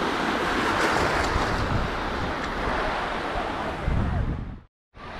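Small waves breaking and washing in foam over shallow sand at the sea's edge, with wind rumbling on the microphone. The sound cuts out abruptly for a moment near the end.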